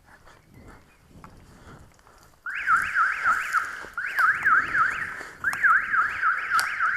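Electronic alarm siren warbling rapidly up and down, about three sweeps a second. It starts suddenly a couple of seconds in and sounds in three bursts with short breaks between them.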